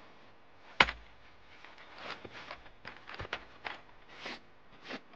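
Folding camp chair being unfolded and set out: one sharp snap a little under a second in, then a run of short fabric rustles and light clacks of the chair's frame.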